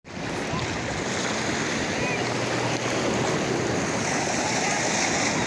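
Steady wash of ocean surf in shallow beach water.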